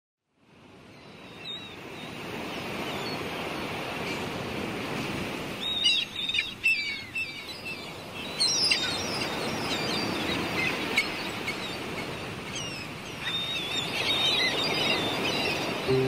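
Birds chirping and calling over a steady wash of surf. A flurry of calls comes about six seconds in, more around eight and a half seconds, and another run near the end; the sound fades in at the start.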